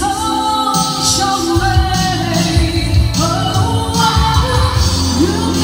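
A woman singing lead through a microphone over live pop music with electric guitar, sustained low bass notes and cymbal-like hiss on the beat.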